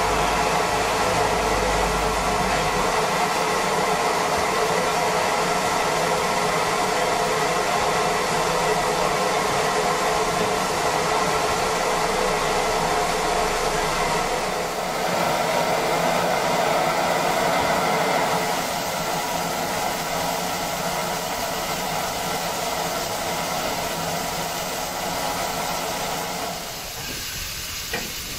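Class 52 steam locomotive standing still, letting off a steady hiss of steam with a few constant tones running through it. The hiss eases off a little partway through and drops again near the end.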